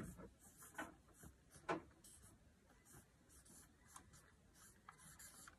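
Felt-tip marker writing on a flip-chart paper pad: a series of short, faint scratching strokes as letters are drawn, a couple of them a little louder.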